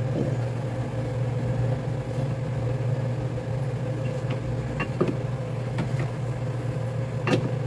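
A steady low machine hum, like a motor or engine running, with a few faint clicks about five seconds in and near the end.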